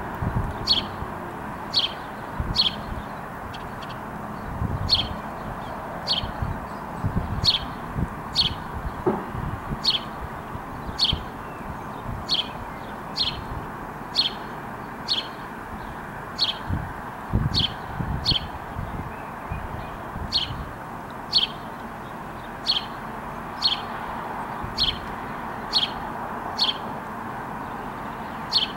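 A small bird calling a single short, high chirp over and over, about once a second, over a steady low rumble.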